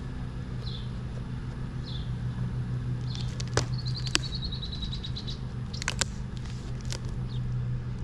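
Birds chirping over a steady low hum, with a few sharp clicks and snaps from the speaker box being handled and opened.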